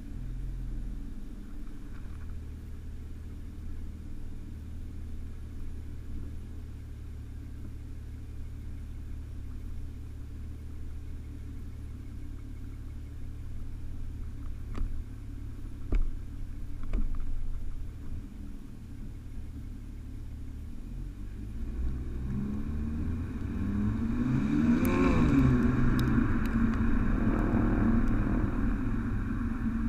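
Stock exhaust of a 2008 BMW 335i E92 with its twin-turbo 3.0-litre straight-six, heard close at the tailpipe: a steady low drone while the car rolls slowly, with a couple of sharp knocks about halfway through. From about 22 s in, the engine revs climb under acceleration and the exhaust note grows louder.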